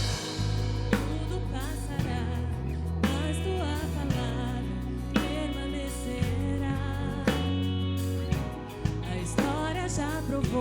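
Live worship band playing a slow gospel song, with bass, a drum hit about once a second, and voices singing.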